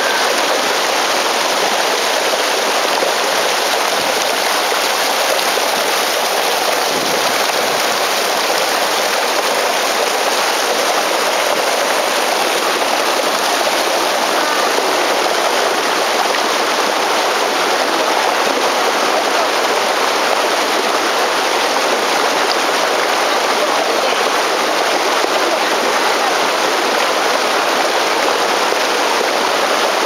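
Shallow, rocky river rushing steadily over stones and a low weir, a constant even wash of water.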